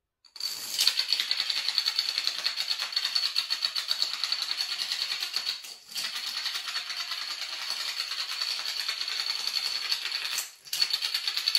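A long chain of dominoes toppling one after another, a dense rapid clatter of clicks as each stone knocks down the next. It breaks off briefly about six seconds in and again near the end.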